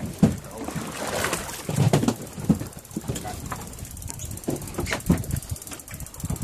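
Steady rumble of a fishing boat at sea, with scattered knocks and brief snatches of voices.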